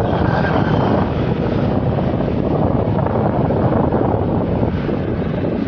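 Wind buffeting the microphone of a camera on a moving bicycle: a loud, steady rushing noise.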